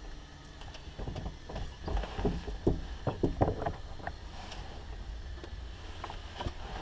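Faint knocks, bumps and rustling from someone moving about in a small aircraft's cockpit and handling a headset, over a low hum; the engine is not running.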